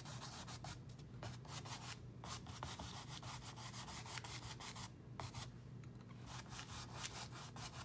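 Dry paintbrush scrubbing acrylic paint over canvas in quick repeated strokes, a faint scratchy rubbing that stops briefly twice, over a low steady hum. The brush is slightly dry and sticky, dragging enough to pull the canvas around.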